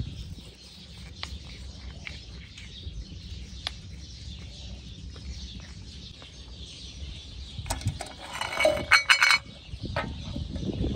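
A stone pestle grinding and knocking in a white stone mortar, with dull low knocks, then a quick run of loud, ringing clinks about eight seconds in.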